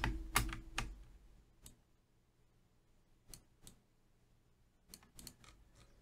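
Faint, scattered clicks of a computer mouse and keyboard: a few quick clicks at the start, then single clicks and small clusters with short gaps between them.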